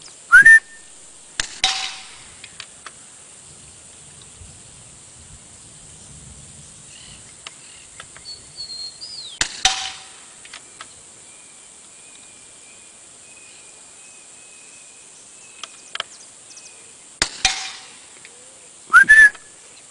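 Suppressed .22LR rifle firing: about five sharp cracks spread out with long gaps, the loudest near the start and near the end, some followed by a brief ring.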